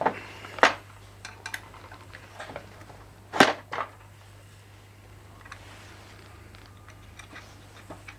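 Metal tools clinking and knocking against metal while a viscous fan is fitted to the engine: a few sharp clinks, the loudest about three and a half seconds in, and some lighter ticks over a steady low hum.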